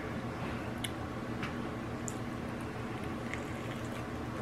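Faint wet clicks and smacks of a person eating sauce-covered barbecue ribs, over a steady low hum.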